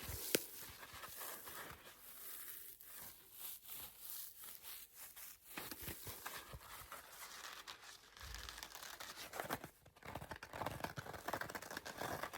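Scratching on a blue sponge: a dry, crackly rasp in quick, irregular strokes, with one sharp tap about half a second in.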